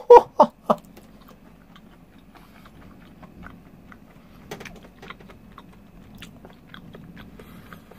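A short laugh, then someone chewing crisp-battered fried octopus karaage: faint, scattered little crunches.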